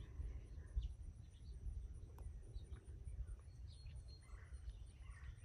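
Faint outdoor ambience: scattered soft bird chirps over a low, steady rumble, with a thin high steady tone behind them.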